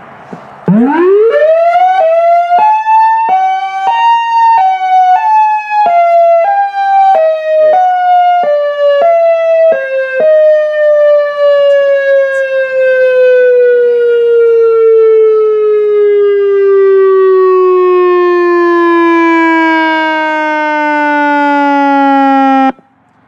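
Electronic warning siren's horn-speaker array sounding. The tone winds up from low to high over about three seconds, then is broken by brief gaps roughly every two-thirds of a second while slowly dropping in pitch. After that it winds down steadily and cuts off suddenly near the end.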